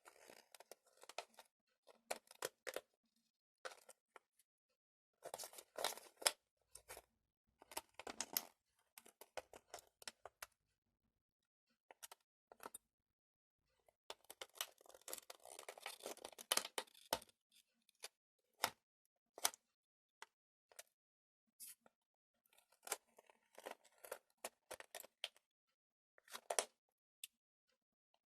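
Homemade jelly slime with glitter and sequins being worked by hand: irregular sticky clicks, crackles and short squelching bursts as it is squeezed and pulled apart.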